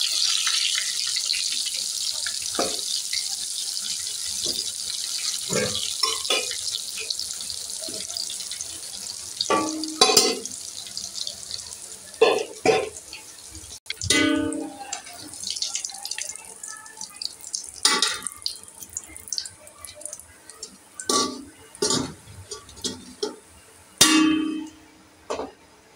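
Potatoes sizzling in hot oil, the hiss slowly fading over the first ten seconds or so. After that, scattered clanks and taps of a metal slotted spoon against metal pots, some with a short ring, as the fried potatoes are lifted out.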